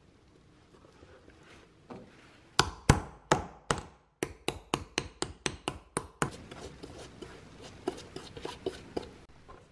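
A small cobbler's hammer tapping a metal shoe shank down onto the cork-filled bottom of a shoe. It gives about fourteen quick, sharp taps that speed up over a few seconds, starting about two and a half seconds in. After that come fainter ticks and rubbing as cement is brushed over the shank.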